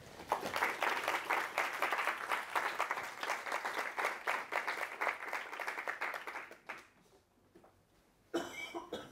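Audience applauding: many hands clapping together, dying away about seven seconds in.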